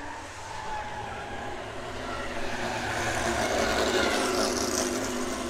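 A classic race car's engine running as it drives past, swelling to its loudest about four seconds in and then easing off.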